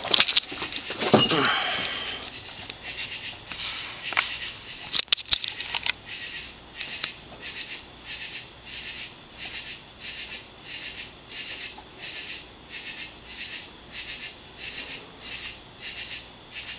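HRS 56-inch industrial ceiling fan with a cast-iron spinner motor running on low speed, making an even, rhythmic pulse about twice a second. A few clicks and knocks come in the first seconds, with sharper ones about five seconds in.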